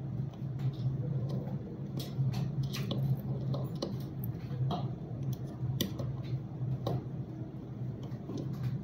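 Scattered small metallic clicks and ticks of pliers pressing the prongs of a bracelet's settings over small heart-shaped stones, over a steady low hum.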